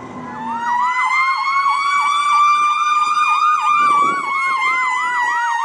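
Electronic emergency-vehicle siren sounding two tones at once: a slow wail that rises a little and then falls, with a fast yelp repeating over it. It starts about half a second in, clean and with no street noise under it.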